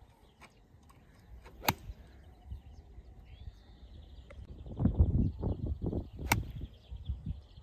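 Two crisp strikes of a sand wedge on a golf ball off fairway turf, sharp clicks about four and a half seconds apart, with a low rumble between them.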